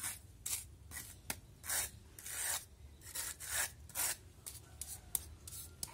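Small pointed trowel scraping and working wet cement-sand mortar in short scraping strokes, roughly two a second in an uneven rhythm.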